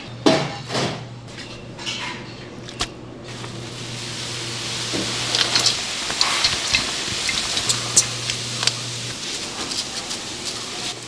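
Kitchen clatter of dishes and utensils: sharp clinks and knocks over a steady hiss that builds up a few seconds in.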